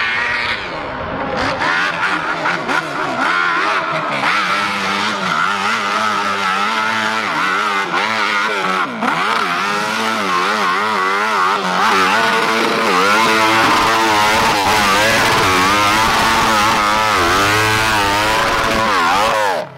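Off-road motorcycle engines revving hard on a steep hill climb, pitch rising and falling again and again as the throttle is worked. The sound cuts off suddenly at the very end.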